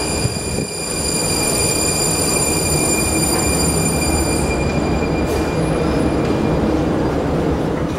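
A Prague Metro train running in the station: a loud, steady rumble with a set of steady high whining tones over it that stop a little past halfway.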